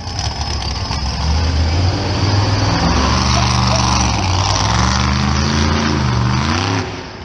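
Monster truck engine running hard, its pitch rising and falling several times in the second half as the throttle is opened and eased off while the truck drives around a dirt arena.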